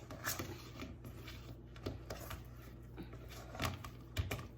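A few light knocks and clicks of things being handled during baking, over a steady low hum.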